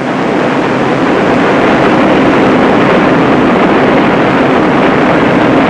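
Propeller aircraft engines droning steadily in flight: an even, dense noise with a low hum underneath, swelling over the first second and then holding level.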